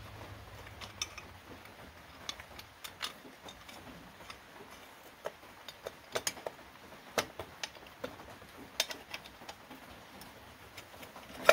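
Irregular light metallic clicks and taps from a motorcycle's aluminium stator cover being fitted by hand onto the engine case, with a sharper click near the end.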